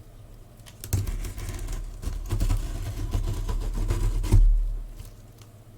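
Box cutter blade slicing through the packing tape on a cardboard box: a scratchy, crackling rasp lasting about three and a half seconds, with handling bumps and a louder thump near its end.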